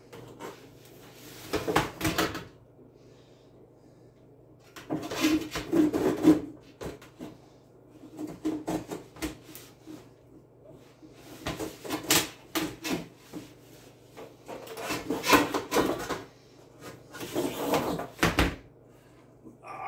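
Parts being handled inside a stainless-steel chicken plucker drum: irregular bouts of knocking, clatter and rustling, about six of them, over a faint low hum.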